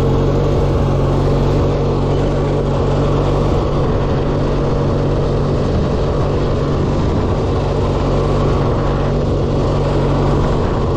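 Riding lawn mower's small engine running steadily as the mower is driven, at an even pitch with no revving.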